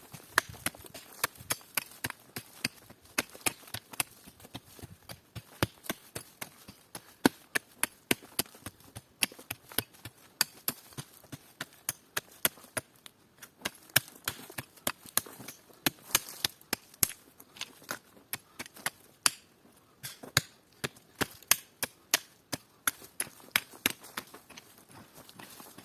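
Wood being chopped or cracked by hand: many short, sharp knocks, irregular at a few a second.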